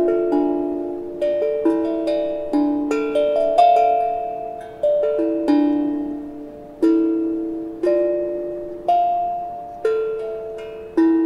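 Hapi steel tongue drum struck with mallets, playing a slow melody of single notes, about one a second, each ringing on and overlapping the next.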